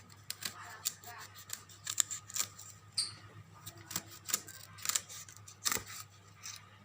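A series of sharp, irregular clicks, about two or three a second, over a low steady hum.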